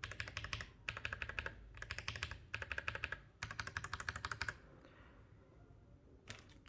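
Tactile Panda-style mechanical keyboard switches in a KBD67 Lite keyboard being pressed rapidly, in several quick bursts of key clacks, stopping about four and a half seconds in, with one more keystroke near the end.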